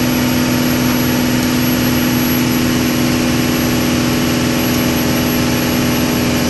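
Cummins 4BT 3.9-litre turbocharged four-cylinder diesel running hard and steady at about 2,450 rpm under load on an engine dynamometer, at 18 psi of boost. The drone holds even throughout.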